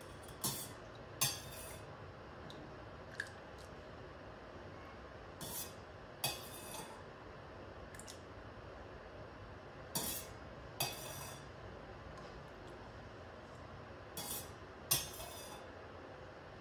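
A steel ladle clinking against a steel pot as melted ghee is scooped out and poured into a plastic measuring cup. The clinks come in four pairs about four to five seconds apart, the second sound of each pair a little longer.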